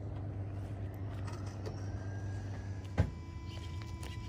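Steady low mechanical hum, with a single sharp knock about three seconds in, after which a faint steady high whine remains.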